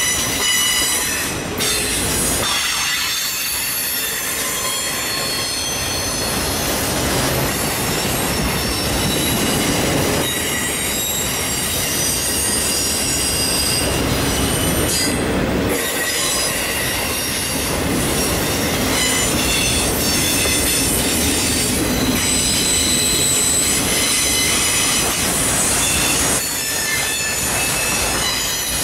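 Autorack freight cars rolling past at close range: a steady rolling clatter from the wheels and trucks, with high-pitched wheel squeal made of several thin tones that come and go as different cars pass.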